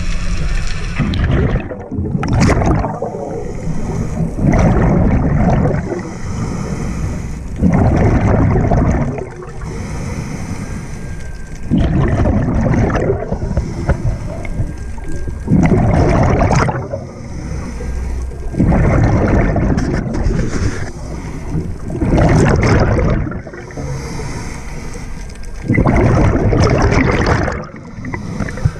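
Scuba diver breathing through a regulator underwater: loud bursts of exhaled bubbles, about one every three to four seconds, with quieter breathing noise between them.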